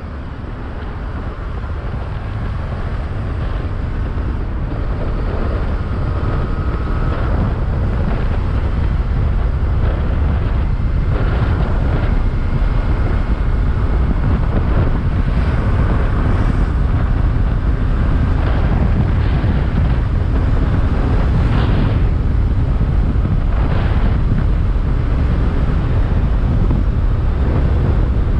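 Wind buffeting the microphone of a motorcycle ridden at speed, a heavy, steady rumble with the engine only faintly underneath. It grows louder over the first few seconds as the bike gathers speed, then holds.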